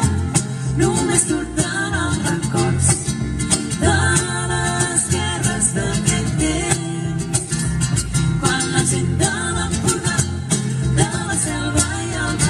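Havanera-style song: voices singing over strummed guitar with a steady beat.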